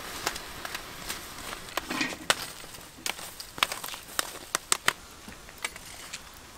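Charcoal embers crackling, with a dozen or so sharp, irregular pops.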